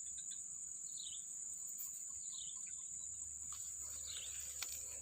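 A steady, high-pitched insect trill, with three short falling bird chirps over it.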